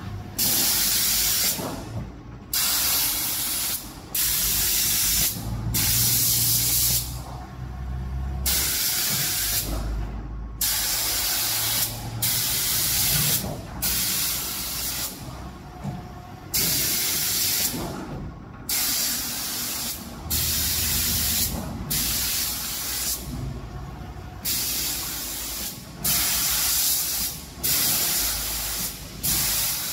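Automatic gantry spray-painting machine's spray gun hissing in repeated bursts of about a second each, cutting on and off as it works over the cabinet doors, over a low motor hum.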